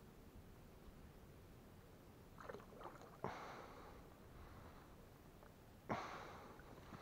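Two sharp splashes in water, about two and a half seconds apart, each fading out over about a second, against a quiet background.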